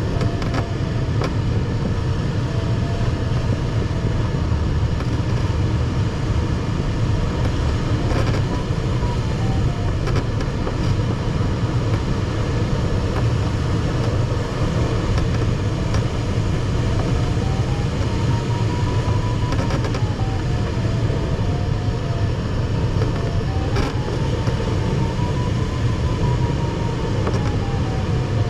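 Steady rushing airflow noise inside the cockpit of an ASW 15 sailplane circling in a thermal. Over it, the variometer's audio tone slides slowly up and down in pitch as the climb rate changes, rising highest twice in the second half.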